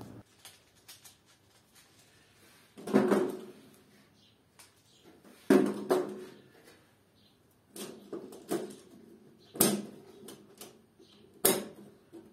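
Plastic miniature circuit breakers clicking and clattering as they are handled and snapped onto a metal DIN rail, a handful of separate sharp clicks spread through, the sharpest about two thirds of the way in and near the end.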